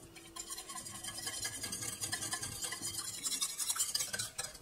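Metal wire whisk beating quickly in a stainless steel saucepan, its wires scraping and rubbing against the pan in rapid strokes. The gelatin is being whisked into hot milk and melted white chocolate to dissolve it.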